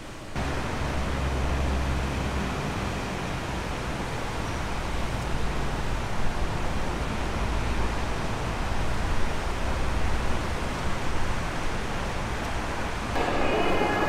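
Steady rushing hiss of wind on the microphone, with deep gusting rumbles that come and go. About a second before the end it gives way to the echoing hubbub of a large indoor hall, with a few faint steady tones.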